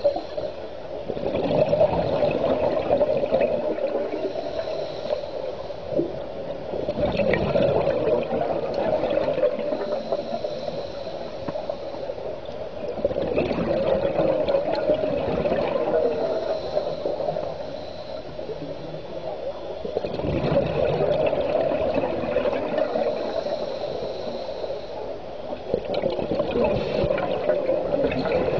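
Underwater recording of a scuba diver breathing through a regulator: exhaled bubbles gurgle and rush, swelling and fading in slow cycles about every six seconds.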